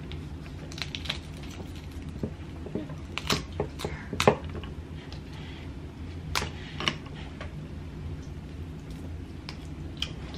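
Cooked snow crab legs being cracked and pulled apart by hand: a string of sharp shell cracks and snaps, thickest in the first half, with wet squishing as the meat is pulled out.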